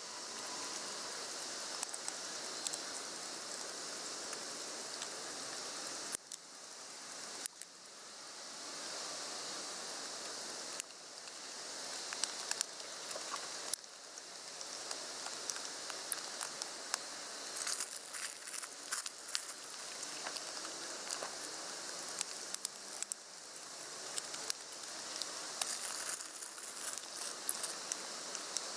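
Knife slicing a carrot and green beans on a small wooden cutting board: scattered light taps and clicks of the blade on the board, more frequent in the last ten seconds, over a steady hiss.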